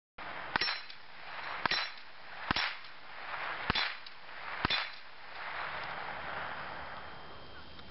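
Five .22 rifle shots in semi-automatic fire, about one a second, each bullet ringing a steel plate on a swinging dueling-tree target with a sharp clang.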